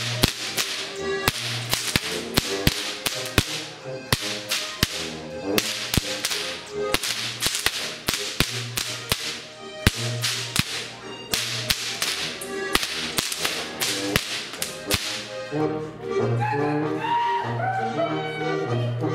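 Whips cracked in quick rhythmic volleys, Bavarian Goaßlschnalzen style, over a band playing a folk tune with a steady bass line. The cracks stop about fifteen seconds in and the music carries on alone.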